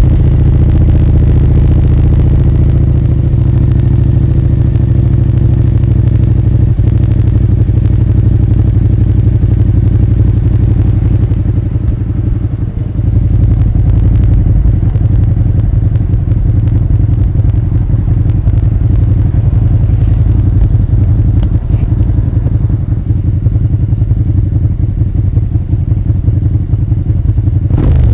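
Suzuki SV650A's 645 cc 90-degree V-twin engine idling, a steady, loud, low, even exhaust note.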